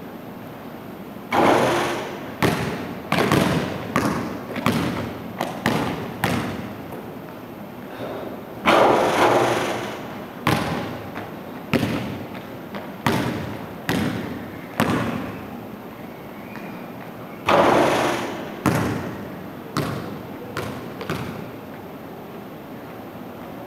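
Basketball bouncing on a hardwood gym floor: a long series of echoing thuds, about one every half second to second, with three louder, longer-ringing bangs spread through.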